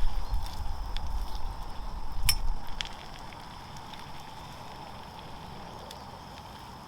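Sausages and bacon sizzling in a small frying pan: a steady hiss with scattered spits and crackles and one sharper click a little past two seconds. A low rumble runs under the first three seconds, then only the sizzle remains.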